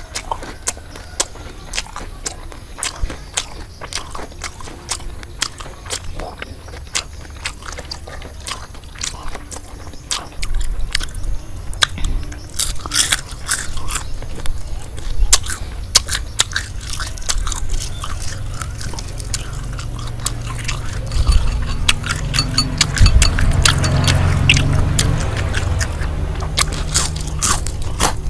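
Close-miked crunching and chewing of deep-fried, batter-coated frogs: many crisp crunches in quick succession, louder from about ten seconds in and loudest in the second half.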